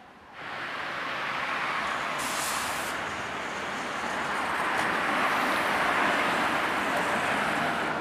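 SSB GT4 articulated tram rolling along the track close by, its running noise starting abruptly about half a second in and getting louder as it passes. A short hiss comes about two seconds in.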